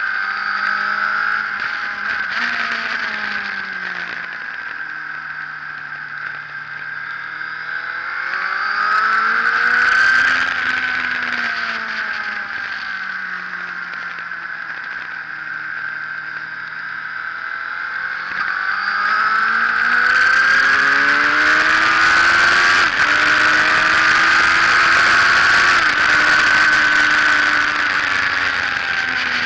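Sport motorcycle engine, heard from a camera mounted on the bike at track speed. The note falls and rises as the rider brakes and accelerates, then climbs hard over the last third, with brief drops at two gear changes. Steady wind rush runs underneath.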